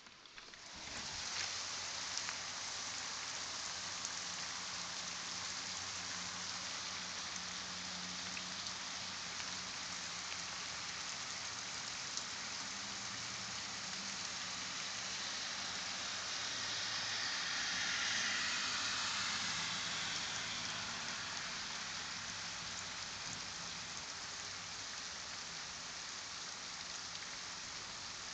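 Steady rain pouring down on a wet street and lawns, an even hiss. It gets sharply louder about a second in and swells a little louder about two-thirds of the way through.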